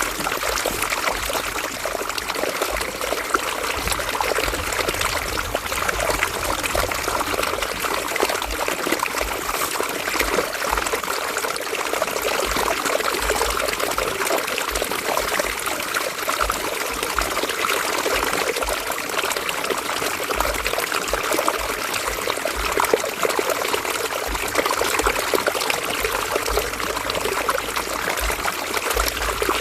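River water flowing and trickling over stones, a steady rushing and babbling.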